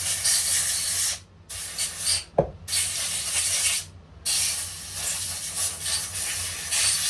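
Compressed-air blow gun hissing in repeated blasts, blowing off the saw's carburettor area after carb cleaner: a blast that stops about a second in, a short one, another of about a second, then a long one from about four seconds in.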